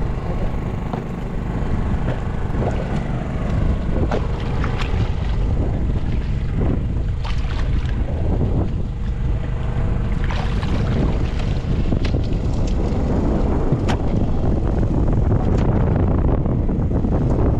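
Fishing boat's engine running with a steady low rumble and wind on the microphone, with repeated splashes and knocks as a hooked fish thrashes at the surface beside the hull.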